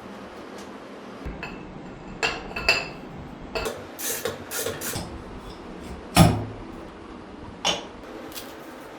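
Metal tools and parts clinking and knocking, a handful of sharp clanks that ring briefly, with one heavier knock and thud about six seconds in.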